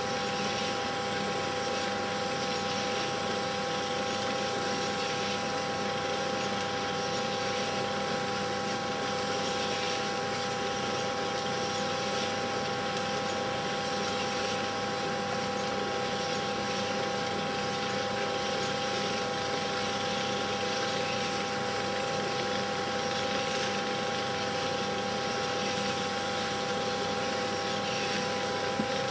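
Steady hiss and hum with a few fixed tones, unchanging throughout: background noise of a silent-film transfer rather than any sound of the machines shown.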